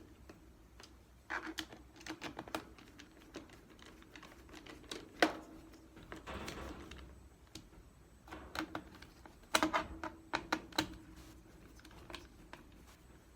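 Irregular plastic clicks and taps from a Dell 3100 Chromebook's bottom cover being pressed on and fastened, its clips snapping into place, in clusters with one sharper snap about five seconds in and a brief rasping noise just after.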